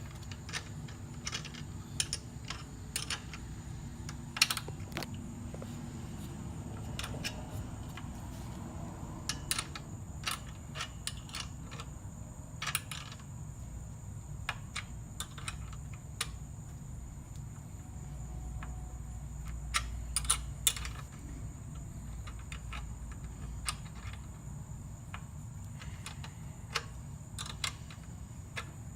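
Irregular light metallic clicks and taps of hand tools working on a motorcycle footpeg mount as the pegs are bolted on, over a steady low hum.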